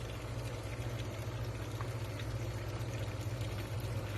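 Water running steadily, with a constant low hum underneath.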